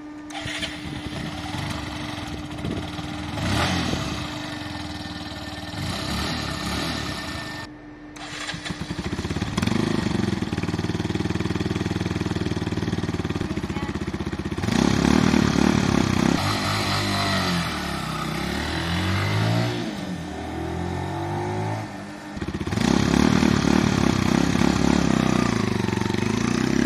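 Benelli BN125 motorcycle's single-cylinder 125cc engine idling and being revved again and again. It runs first through the stock exhaust, then after a cut through the same exhaust with holes drilled in it, a mod meant to make it sound deeper.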